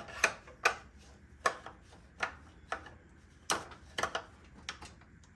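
Sharp, irregularly spaced clicks, about ten of them, from a hand tool tightening a screw on a miter saw's dust-collection attachment.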